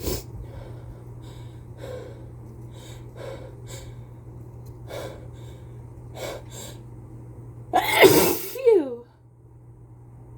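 Human sneeze from a person with a head cold: several short breaths drawn in over the first seven seconds, then one loud, wet sneeze about eight seconds in that ends in a voiced cry falling in pitch.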